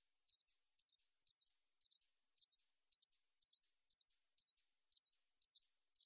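Song of a 잔날개여치 bush cricket (a katydid): short high-pitched chirps repeated evenly, about two a second.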